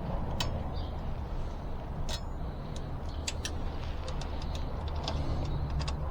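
Scattered light metallic clicks and taps of hand tools working on an e-bike's rear brake, irregular, over a steady low background rumble.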